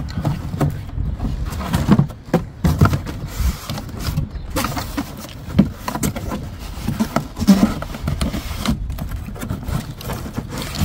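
Irregular handling sounds of split firewood and cardboard: wood pieces knocking against a cardboard box, and cardboard scraping and sliding as flat pieces are pushed into place.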